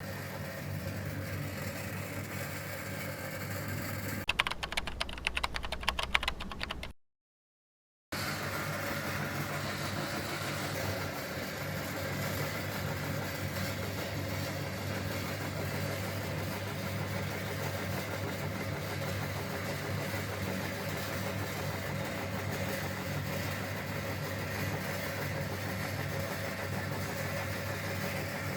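Electric meat grinder motor running with a steady hum. A few seconds in comes a louder stretch of rapid crackling and clattering, then a second of silence before the steady hum resumes.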